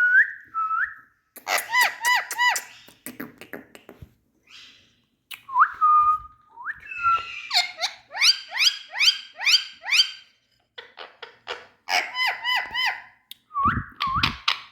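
Indian ringneck parakeet whistling and calling in runs of short, shrill notes that rise and fall, about three or four a second, with brief pauses between the runs.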